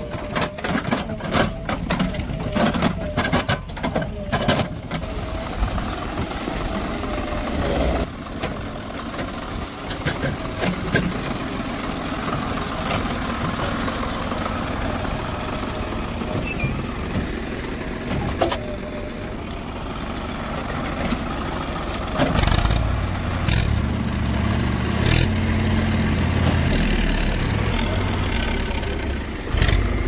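Diesel engine of an earthmoving machine running steadily, with sharp knocks in the first few seconds. About three-quarters of the way through it grows louder and heavier under load.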